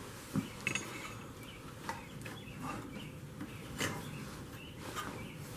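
Scattered light clicks and clinks of a motorcycle wiring harness and small parts being handled on the bike's frame, with a few sharper knocks spread through.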